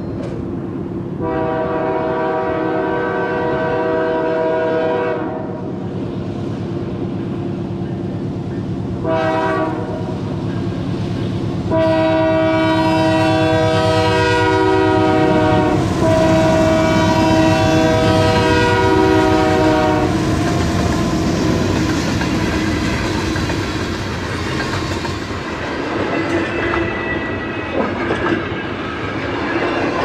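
Canadian Pacific freight locomotive's air horn sounding a series of blasts for a grade crossing: a long blast, a short one, then two long ones run together. After about twenty seconds the train passes close by, the locomotive pushing through the snowbank and double-stack container cars clattering over the rails.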